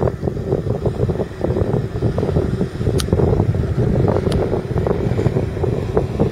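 Fendt 927 Vario tractor's 7.8-litre turbocharged six-cylinder diesel running steadily while pulling a loaded water tanker.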